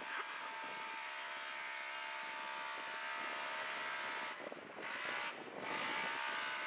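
Polaris RZR side-by-side's engine running steadily under throttle as it drives over a dirt track, heard from on board with wind and rough-ground noise; the engine sound dips briefly twice, about four and a half and five and a half seconds in.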